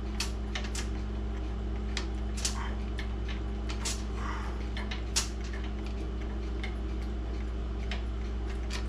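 Small sharp clicks and taps at irregular intervals from hand work on parts inside a grandfather clock's case, the sharpest about five seconds in, over a steady low hum.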